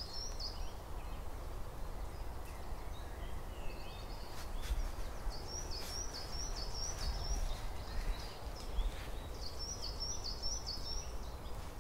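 Woodland ambience: a songbird singing a short phrase of rapidly repeated high notes, which comes round again twice, over a low steady rumble.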